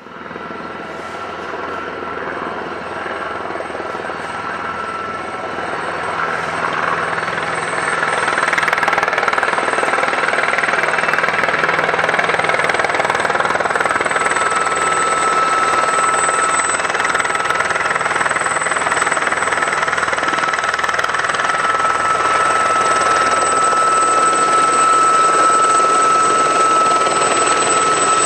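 Aérospatiale Gazelle helicopter flying low and hovering: turbine whine and rotor noise, growing louder over the first eight seconds or so, then holding steady with a high whine on top.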